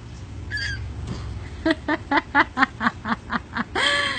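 A toddler giggling in a quick run of short bursts, about four a second, then letting out a loud high squeal of delight near the end.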